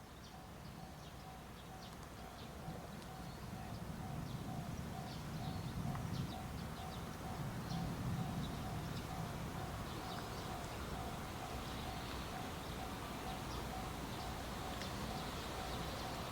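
Railway level-crossing warning bell ringing in a steady, even repeating beat, with birds chirping. The low rumble of an approaching electric-locomotive freight train grows steadily louder underneath and becomes the loudest sound.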